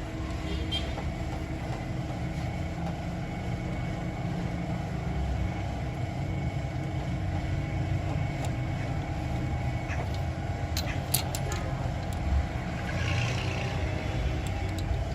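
Toyota GLi car engine idling steadily, with a few light clicks about eleven seconds in.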